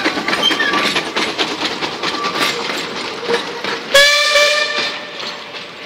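Steam train's passenger carriages rattling and clicking over the track as they pass, with a few brief squeals from the wheels on the curve. About four seconds in the locomotive's steam whistle gives one short blast of about a second, then the train's sound fades away.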